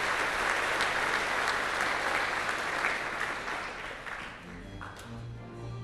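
Audience applauding, the clapping dying away after about four seconds. Near the end the Wurlitzer theatre pipe organ comes in with sustained low notes.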